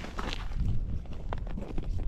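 Footsteps and scuffing on the ice, a run of irregular crunches and knocks over a steady low rumble.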